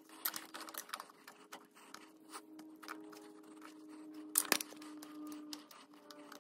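Light metallic clicks and clinks of small parts and hand tools being handled at a 4x4 front wheel hub, the sharpest about four and a half seconds in, over a faint steady hum.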